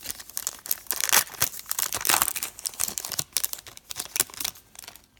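A trading card pack's wrapper being torn open and crinkled by hand, dense crackling in the first half that thins out near the end.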